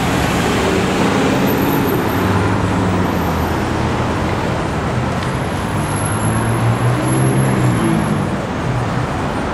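Street traffic with cars passing close by, a steady engine and tyre rumble. It swells as vehicles go past, about a second in and again around seven seconds in.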